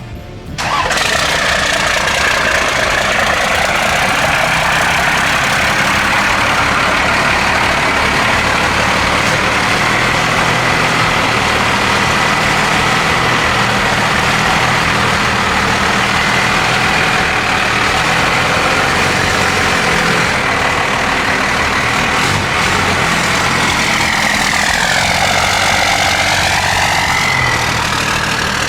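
1993 Dodge's 5.9-litre 12-valve Cummins inline-six turbodiesel starting about a second in, then idling steadily. A high whine dips and rises in pitch near the end.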